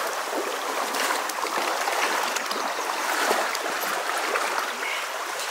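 Shallow creek water flowing steadily over stones close by.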